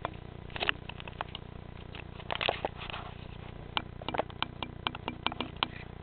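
A cat chewing on a clip: sharp clicks and crunches, with the loudest clusters about half a second and two and a half seconds in, then a quick run of separate clicks in the second half.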